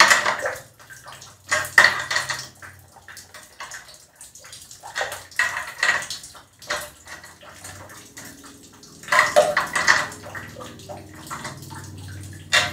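Small metal nuts clicking and clattering as they are turned by hand onto the studs of an electric water heater's heating-element flange, in several short bursts with quieter handling between. The nuts are being snugged a little at a time, each then the one opposite, during reassembly.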